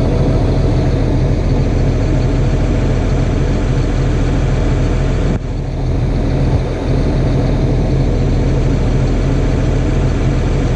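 Farm tractor's diesel engine running steadily, with a brief break about five seconds in.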